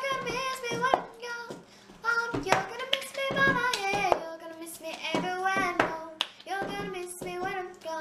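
A child singing a tune while hands clap and a plastic cup is tapped and slapped on a table in the rhythm of the cup game.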